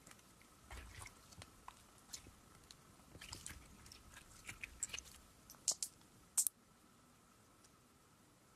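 Glitter slime being stretched and squeezed by hand, making a run of small sticky clicks and squelching crackles, the loudest pops a little past the middle.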